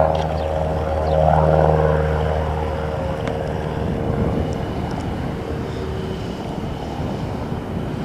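Propeller airplane passing close by: a steady engine-and-propeller drone, loudest in the first couple of seconds, then fading to a dwindling rumble as it moves away.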